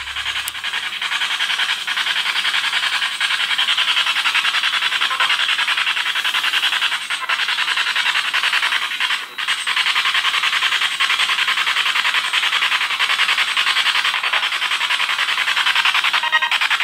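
Loud, steady hiss of static with a fine rapid flutter. It starts abruptly and dips briefly about nine seconds in.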